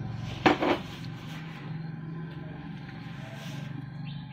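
A nearby engine idling with a steady low hum. About half a second in there is a short, sharp, loud sound, with a smaller one straight after.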